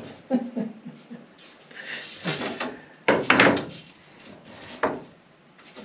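Plywood boards being handled on a workbench: several wooden knocks and clatters, with a louder clatter about three seconds in.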